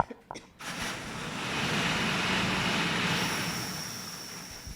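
Lottery draw machine running between numbers: a few clicks, then a rushing noise that swells and fades over about four seconds.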